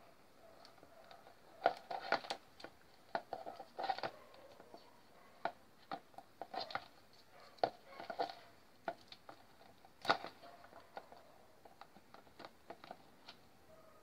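Small irregular clicks, taps and crinkles of hands handling spliced wires inside a fan's plastic base, in scattered clusters with the sharpest click about ten seconds in.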